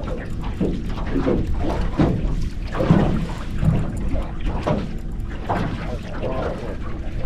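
Water splashing and sloshing in irregular bursts against the boat, over a steady low rumble.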